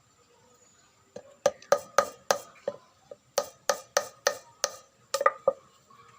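A run of about fifteen sharp wooden clacks, roughly three a second, with a short hollow ring to each, typical of bamboo and wood knocking together.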